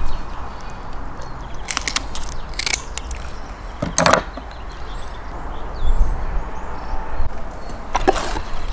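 A kitchen knife and pieces of catfish handled on a wooden cutting board and in plastic containers: a few scattered sharp knocks and clicks, the loudest about four seconds in, over a steady low rumble.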